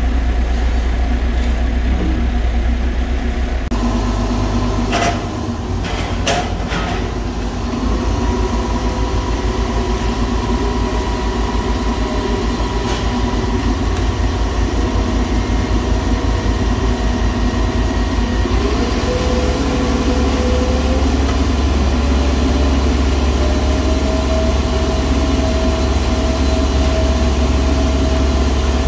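A mobile crane's heavy engine running steadily with a fast low throb while it hoists a load. A few sharp knocks come about a quarter of the way in, and a whine rises in pitch a little after halfway and then holds steady.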